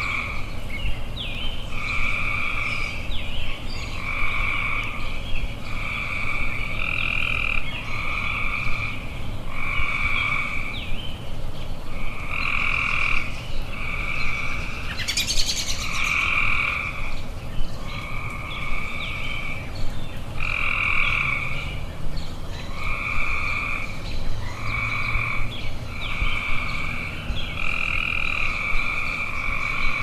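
Frogs croaking: a loud call repeats roughly once a second, each call about half a second long, with short high chirps in between and a brief rising buzz about halfway through.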